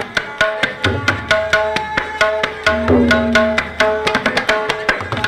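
Tabla solo: rapid, crisp strokes on the treble drum (dayan) mixed with deep bass-drum (bayan) strokes whose pitch bends downward. A held melodic line with shifting pitch runs underneath.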